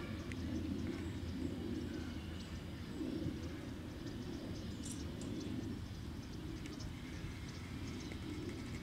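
Outdoor ambience: a steady low hum, with faint, scattered chirps of small birds.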